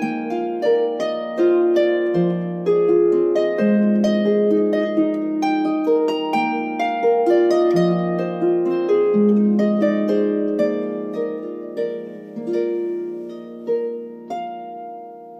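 Dusty Strings lever harp played solo: a plucked melody over low ringing chord notes, several notes a second, the strings a little out of tune. Near the end the playing thins out and the last notes ring down.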